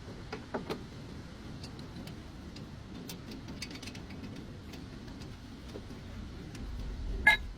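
Scattered light metallic clicks of work on the car's front wheel hub, then one sharp, ringing metal clink near the end.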